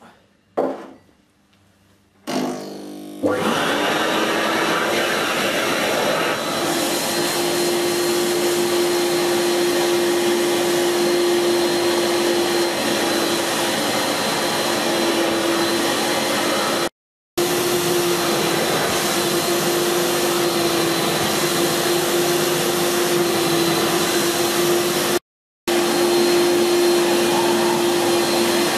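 Kärcher Puzzi 100 spray-extraction carpet cleaner starting up about two seconds in and running steadily, with a hum and a high whine, as its hand nozzle sucks spilled liquid out of the carpet. There is a brief knock just before it starts, and the sound cuts out twice for a moment.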